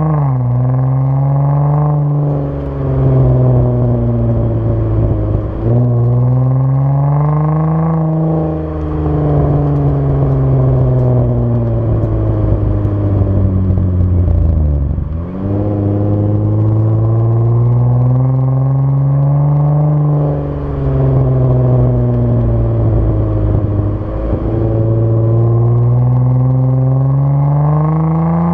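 Chrysler 200's 3.6 L Pentastar V6 through an Apexi N1 aftermarket exhaust, heard right at the tailpipe while driving. The exhaust note repeatedly climbs under acceleration and drops sharply at each gear change. In the middle it winds down for several seconds as the car slows, then pulls up again.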